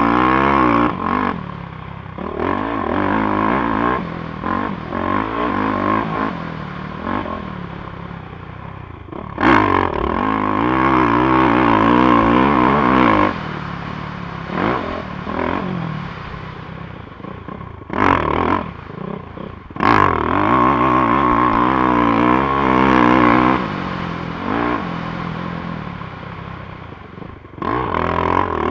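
A 450cc four-stroke dirt bike engine revving hard and backing off again and again as it is ridden, the pitch climbing and dropping with the throttle. A few sharp knocks cut in, about nine seconds in and twice more around eighteen to twenty seconds.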